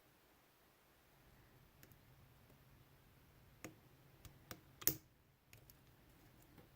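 Faint metallic clicks and ticks of a short hook pick working the pin stack inside a Cisa padlock's keyway: a handful of light clicks in the second half, one sharper than the rest.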